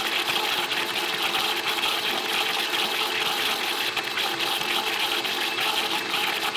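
Oster countertop blender running steadily at high speed, its blades churning a frozen-fruit smoothie into a spinning vortex.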